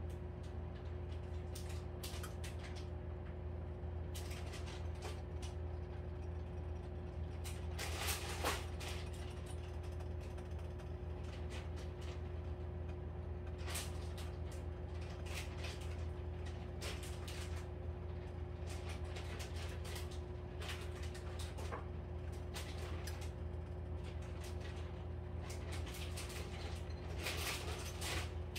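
Frying pan heating on an electric coil burner: scattered light ticks and crackles over a steady electrical hum, with a louder cluster of crackles about eight seconds in and again near the end.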